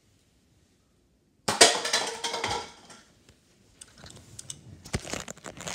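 A nerf dart hits a stack of cups, which clatter and tumble down in a sudden burst about a second and a half in, lasting about a second and a half. Quieter scattered knocks and clicks follow.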